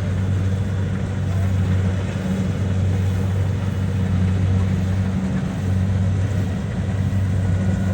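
Kubota DC70 rice combine harvester's diesel engine running steadily at a constant low hum.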